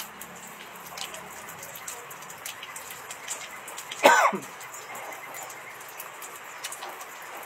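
A man coughs once, about four seconds in: a short, loud vocal burst lasting about half a second, falling in pitch. Faint scattered small ticks run underneath.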